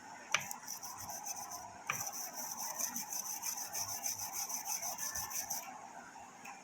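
A small brush scrubbing the gold contact pads of a RAM module, cleaning them with petrol: a couple of taps, then rapid back-and-forth strokes, several a second, that stop shortly before the end.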